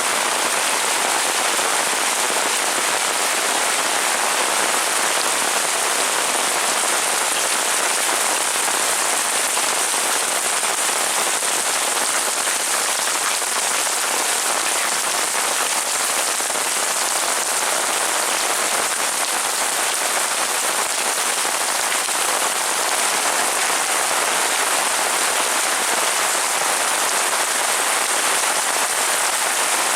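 Heavy rain falling steadily on surfaces, a dense even hiss of raindrops with no let-up.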